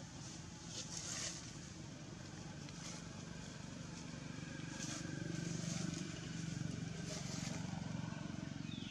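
A motor engine running with a steady low drone that grows louder about halfway through, with a few faint ticks over it.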